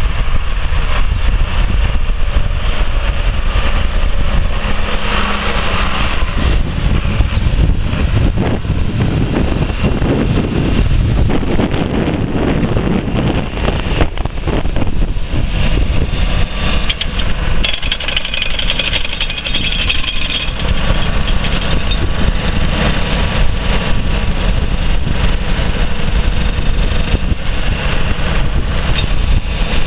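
John Deere 4840 tractor's 7.6 L six-cylinder diesel engine running steadily, first as the tractor drives away across a field, then at idle heard up close from behind after a cut about 14 seconds in.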